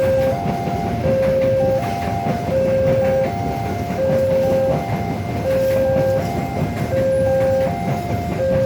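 Railway level-crossing warning alarm sounding a repeating electronic chime, a lower note followed by higher notes, about every second and a half. Underneath runs a steady rumble of a train passing over the crossing.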